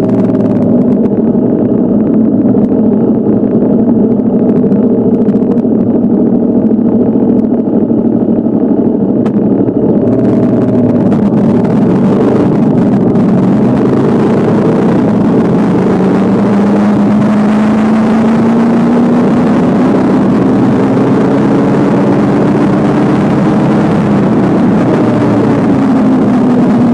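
Motorcycle engine running steadily while riding, with wind rushing over the microphone that grows stronger about ten seconds in. The engine note climbs slowly for several seconds, then drops near the end.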